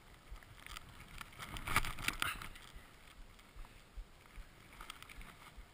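Skis running through deep powder snow with a soft steady hiss, broken by a brief cluster of knocks and scrapes about two seconds in.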